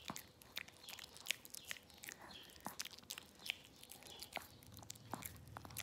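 A small dog biting and chewing a peeled banana held up to its mouth: an irregular run of quick clicks and smacks from its jaws and teeth.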